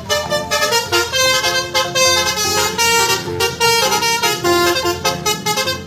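Upbeat background music: a quick melody of short, horn-like notes at changing pitches over a steady low layer.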